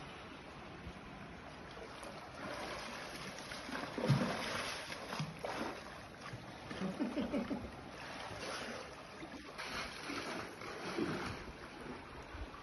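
Sea water washing in a rock gully and wind on the phone's microphone, rising and falling, with a few faint short pitched calls about four and seven seconds in.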